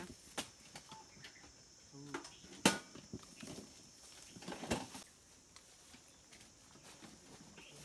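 Quiet handling noises while an elephant's abscess is cleaned by hand: scattered small clicks and rustles, the sharpest a single click about two and a half seconds in and another cluster near five seconds, over a faint steady high hiss.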